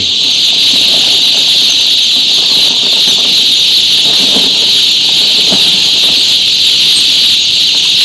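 Loud, steady chorus of peeping from a mass of day-old male chicks packed in ventilated cardboard transport boxes.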